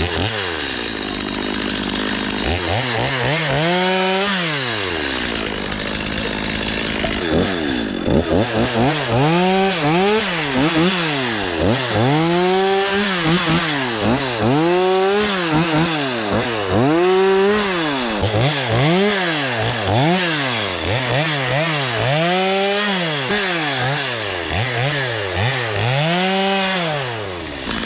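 Two-stroke chainsaw running, its engine revved up and let back down again and again, about once every second and a half, after a steadier stretch and a single rev near the start.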